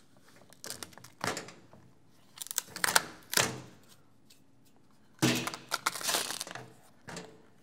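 Rubber turntable mat being worked loose and peeled up off the metal platter: a string of short rubbery scrapes and tearing rasps, heaviest about two and a half to three and a half seconds in and again from about five to six and a half seconds.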